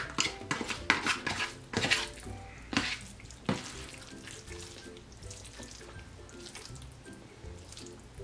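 A fork clicking and scraping against a plastic takeout tray as it stirs and lifts saucy noodles, with wet slurping and eating sounds, over background music. Several sharp clicks come in the first few seconds, and after that it is mostly the music.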